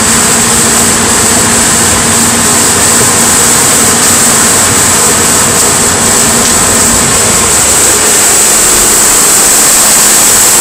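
Supercharged 3800 (L67) V6 of a 1998 Oldsmobile LSS idling steadily, heard from in front of the car.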